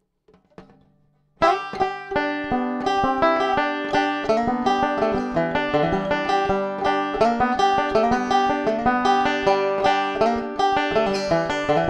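Resonator banjo fingerpicked with Gold Tone finger picks: a steady stream of rapid, bright plucked notes starting about a second and a half in, after a couple of faint clicks. It is heard through a Pick Up the World piezo pickup with EQ, blended with a Behringer SL-75C microphone.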